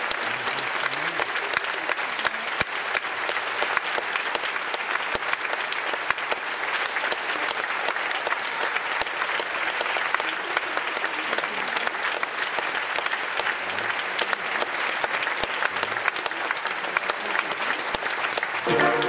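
Theatre audience applauding steadily as a ballerina takes her bows; music strikes up right at the end.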